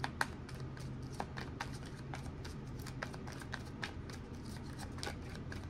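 A tarot deck being shuffled by hand: a run of light, irregular card clicks and flicks, over a faint steady low hum.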